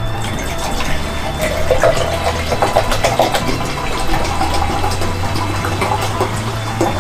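Water poured from a plastic bottle into a small steel pot on a spirit stove, over background music with a low bass line.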